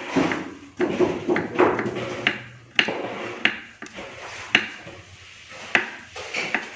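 Kitchen knife cutting food against a wooden board by hand, making sharp irregular knocks about once a second.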